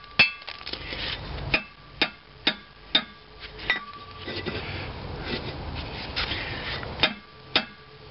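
A steel plate being tried over the gib key and cast-iron flywheel hub: a run of sharp, ringing metal clinks about half a second apart, then scraping as it is worked against the hub, and two more clinks near the end. The plate's hole is too small to go over the key.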